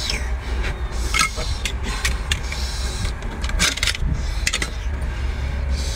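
Metal spoon scraping and clinking against a scallop shell and wok as sauce is spooned onto the scallop: a string of short sharp clicks and scrapes, the loudest a little past halfway, over a steady low rumble.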